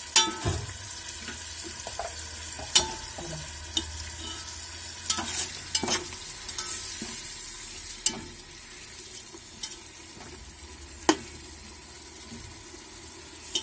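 Onion-and-spice masala frying in a metal pot, sizzling steadily while a slotted metal spatula stirs it. The spatula gives sharp clinks against the pot about half a dozen times, the loudest right at the start and about three seconds in.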